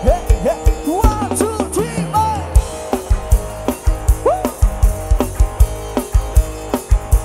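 Live Isan band music played through a rot hae sound-truck system: a fast, steady kick-drum beat under a melodic lead line that bends up and down in pitch.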